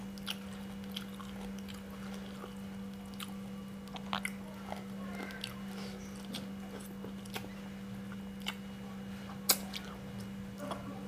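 Close-up mouth sounds of a person eating rice and fish by hand: chewing with scattered wet lip-smacks and clicks, one sharper smack near the end. A steady low hum runs underneath.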